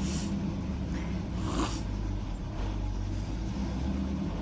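Car engine running steadily under way, a low drone, with two brief rushes of noise, one at the start and one about a second and a half in.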